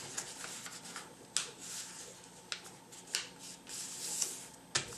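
A sheet of paper rustling and crinkling as it is folded and creased by hand, with several short sharp clicks, the loudest near the end.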